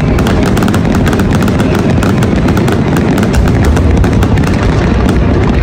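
Large fireworks display: a dense, continuous barrage of crackling shots over a heavy booming rumble.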